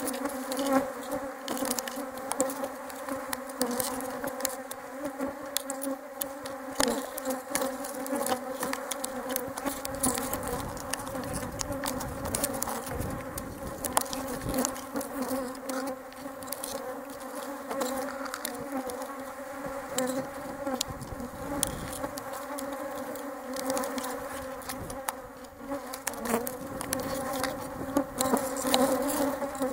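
Many honeybees buzzing as they fly around the hives close to the microphone, a steady hum with scattered small clicks.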